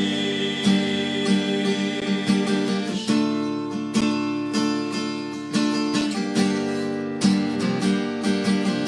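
Song backing music with a strummed acoustic guitar over sustained chords, in an instrumental passage between sung lines.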